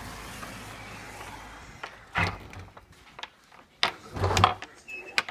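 A door being handled: a few sharp knocks and clunks, the loudest a heavy thud about four seconds in. Before them, a steady low hum dies away.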